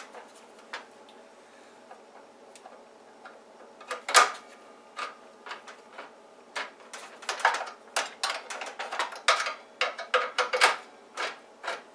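Light clicks and clinks of a hand tool loosening screws and working parts loose on a DeWalt DWS779 mitre saw's blade guard. Sparse at first, with one sharper knock about four seconds in, then quick and irregular over the second half.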